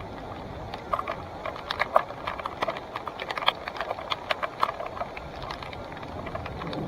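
Salsa Timberjack mountain bike rattling over rough singletrack: irregular sharp clicks and knocks from the bike and its gear over a steady rush of riding noise.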